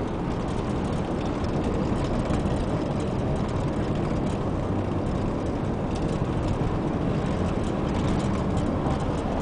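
Steady road and tyre noise from a car driving across a bridge deck, heard from inside the car.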